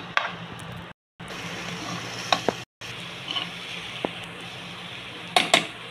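Black dal and potatoes sizzling as they fry in oil in a metal pot, stirred with a steel ladle that clinks against the pot a few times, loudest twice near the end. The sound cuts out briefly twice.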